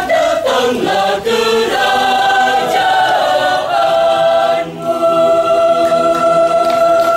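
Church choir singing, moving through several notes and then holding one long sustained chord from about five seconds in, the close of the piece.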